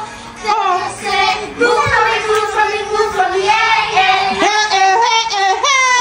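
A girl and a woman singing a slow song together into handheld karaoke microphones, the melody gliding and held on long notes.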